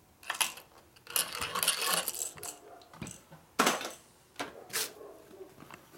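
Metal parts and tools clinking and clattering on a workbench as they are handled, in several separate knocks, the sharpest a little past the middle.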